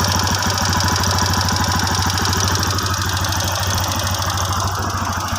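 TVS Apache RTR's single-cylinder four-stroke engine idling steadily with a fast, even tik-tik ticking. The ticking is the engine fault the video sets out to repair.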